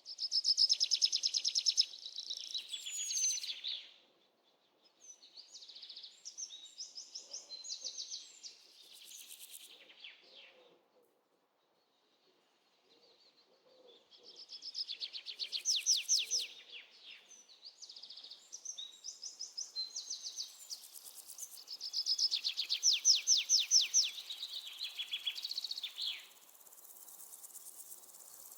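A bird singing in phrases of rapid, high trilled notes, some with quick downward glides, broken by short pauses, with a silent gap of about two seconds near the middle.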